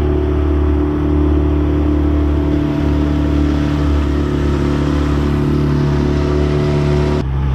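Dinghy outboard motor running steadily at speed, with water rushing past the hull. The engine note drops slightly near the end.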